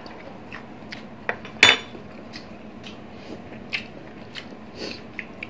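Close-up eating sounds: chewing and biting, with scattered clicks of metal spoons against glass dipping bowls, one sharper ringing clink about one and a half seconds in.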